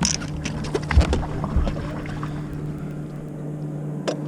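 Splashing, knocks and thumps as a big hooked bass is brought in at the boat, bunched in the first two seconds with the heaviest thump about a second in, and one more sharp click near the end. A steady low hum runs underneath.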